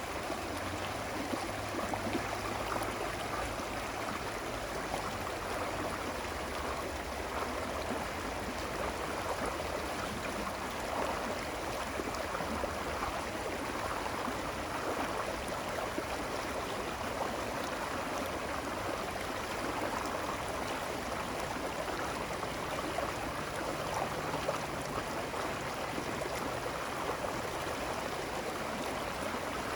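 Running water of a stream, a steady babbling rush with no pauses or changes.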